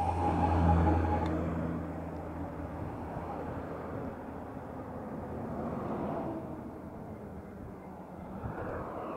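Vehicles passing: an engine hum swells to its loudest about a second in and fades away, with two gentler swells of passing-traffic noise around six seconds and near the end.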